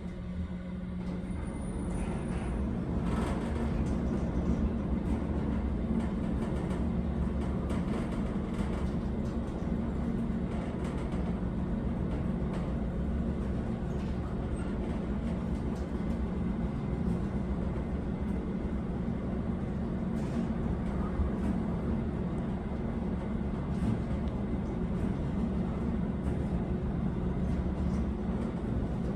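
1974 Otis traction elevator car travelling in the hoistway: a steady low rumble that builds over the first few seconds as the car gets under way, then holds even.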